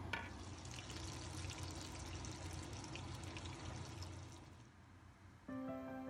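Food cooking in a pan: a crackling, watery hiss full of fine ticks that fades away after about four and a half seconds. Background music comes in about five and a half seconds in.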